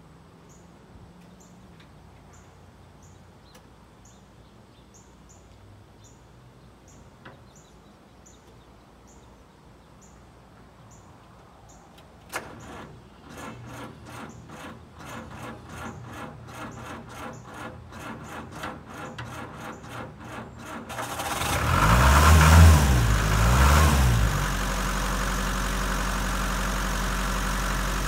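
Cold start of a 1962 Land Rover Series 2A's 2.25-litre four-cylinder diesel engine after weeks of sitting. About twelve seconds in, a click and the starter cranks it over in a steady rhythm for about eight seconds. It catches, revs up and down for a few seconds, then settles into a steady idle.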